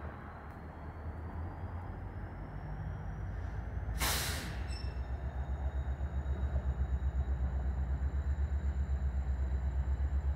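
Passenger railcars rolling slowly past with a low rumble that swells and pulses steadily in its second half. About four seconds in there is a short, loud hiss of air, followed by faint steady high-pitched tones.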